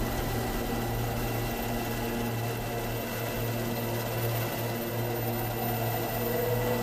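Helicopter in flight: a steady low drone of engine and rotor.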